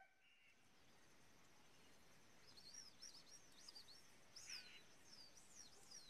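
Near silence with faint, quick, high bird chirps starting about two and a half seconds in.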